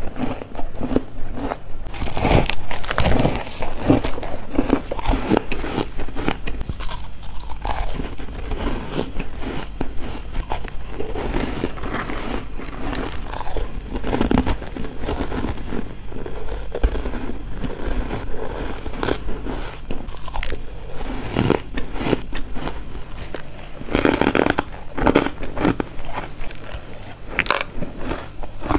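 Biting and crunching of crumbly frozen ice and freezer frost, close to a lapel microphone: dry, squeaky crunches following one another without a break, heaviest a couple of seconds in and again near the end.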